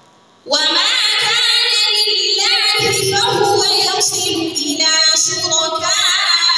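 A woman chanting Qur'anic recitation (tajwid) into a microphone. After a short pause she starts a long, ornamented melodic phrase about half a second in, her voice gliding and turning in pitch.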